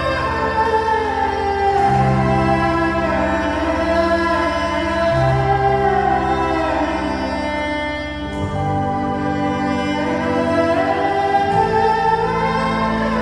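Slow ambient music of long sustained chords, its low bass note changing about every three seconds.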